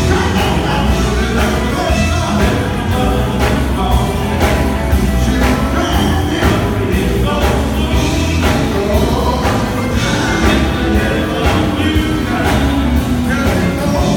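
Live gospel band playing: a man singing into a handheld microphone over electric guitars and a drum kit, amplified through the PA, with a steady, heavy beat.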